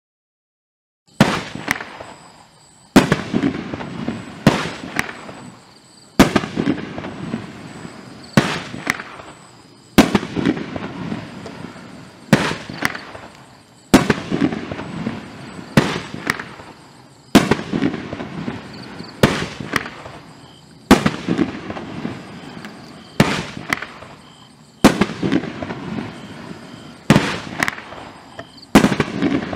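500-gram consumer fireworks cake firing its aerial shots: a run of sharp bangs about every two seconds, starting about a second in, each trailing off before the next.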